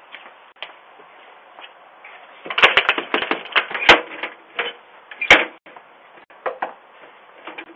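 A rapid, uneven run of sharp clicks and knocks lasting about three seconds, starting a couple of seconds in, followed by a few scattered taps.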